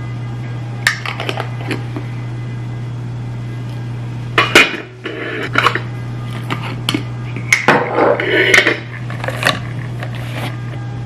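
Clinks and knocks of kitchenware being handled on a counter: oil dispensers and jars set down and moved, in irregular clusters about a second in, around the middle and later on. A steady low hum runs underneath.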